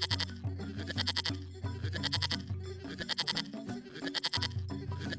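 Background music for children with a steady beat and a bass line, and a bright high sound repeating about once a second.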